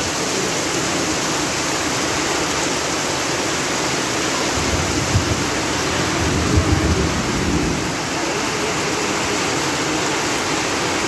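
Heavy rain pouring steadily onto a shop awning and a flooded street, with water running off the awning's edge. A low rumble swells for about three seconds in the middle.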